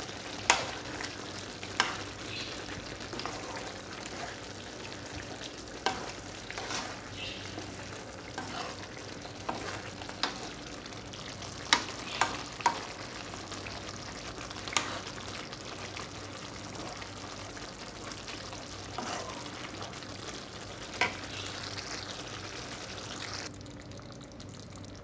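Chicken noodle soup simmering with a steady hiss in a pan as a wooden spatula stirs it, with scattered sharp knocks of the spatula against the pan. The hiss cuts off abruptly near the end.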